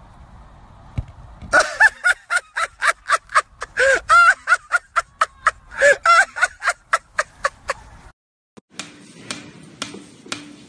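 A person laughing hard in a rapid run of high-pitched 'ha' bursts, about four a second, for several seconds. Near the end it gives way to a series of sharp knocks over a low hum.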